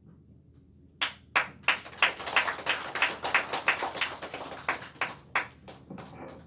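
A group of people applauding, with the clapping starting suddenly about a second in and thinning out near the end.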